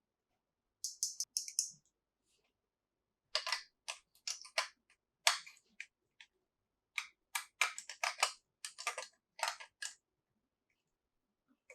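Small plastic toys and their packaging being handled: clusters of sharp clicks and crackles with short pauses between them.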